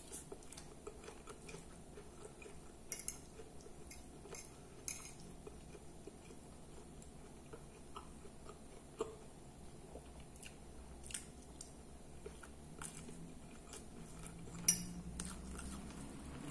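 Metal fork clinking and scraping against a glass plate in scattered sharp clicks, the loudest near the end, with close-up chewing of lettuce and food in between.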